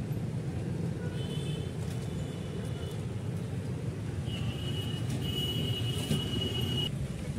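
Steady low rumble of background vehicle noise, with a faint thin high tone through the second half.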